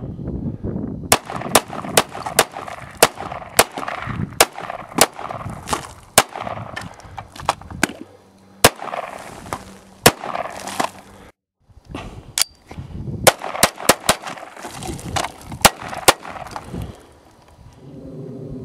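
Steady string of .22 Long Rifle shots from a High Standard HD Military semi-automatic pistol, one to three a second, with a short break about eleven seconds in. The shots stop near the end.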